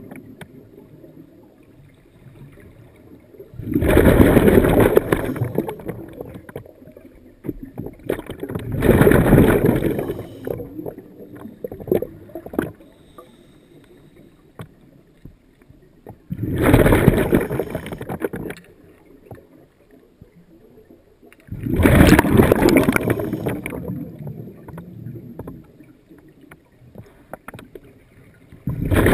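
Scuba diver breathing out through a regulator, heard underwater: a gurgling rush of exhaust bubbles about every five seconds, each lasting a second or two, with a faint hiss and small clicks in between.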